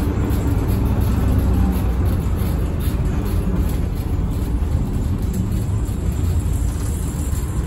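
Daimler Fleetline double-decker bus under way, heard from inside the saloon: the rear-mounted diesel engine's steady low drone mixed with road noise, easing slightly towards the end.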